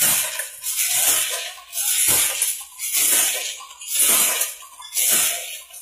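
Hand loom with a jacquard head being worked at a steady beat: a clatter about once a second, each stroke a knock followed by a short rattle, as the shuttle is thrown and the batten beats up the weft.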